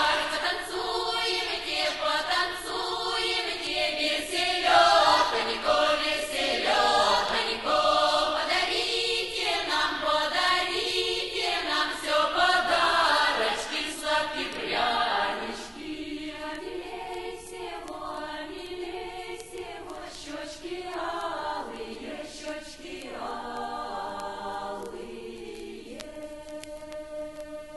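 Russian folk choir singing in full voice. It grows quieter about halfway through and closes on a long held chord. This is a 1970s Soviet LP recording.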